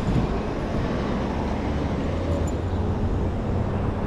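City street traffic: a steady low rumble of motor vehicles, with an engine hum growing firmer from about halfway through.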